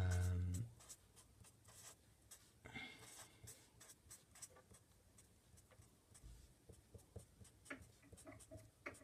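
Broad felt-tip marker rubbing and scratching across paper in many short, faint strokes.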